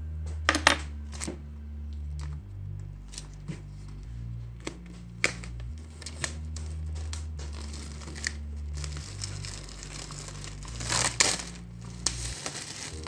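Plastic shrink-wrap being peeled and torn off a hardcover book: crinkling and crackling with sharp snaps, the loudest about half a second in and again around eleven seconds in.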